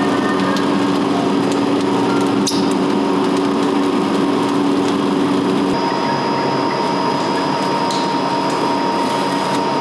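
Two-roll rubber mill running while it works silicone rubber: a steady machine hum with a few held tones, which change pitch about six seconds in, and a brief sharp click about two and a half seconds in.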